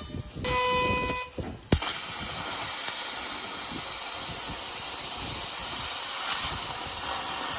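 A 30 kW fiber laser bevel-cutting 30 mm mild steel: the cutting jet and sparks make a steady hiss. Near the start there is a short whistling tone, then a sharp crack just under two seconds in, before the steady hiss sets in.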